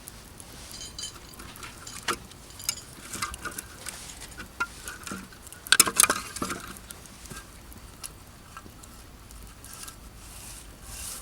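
Scattered crackles, taps and clinks from a wood campfire and camp gear being handled, with a dense, loud cluster of them about six seconds in.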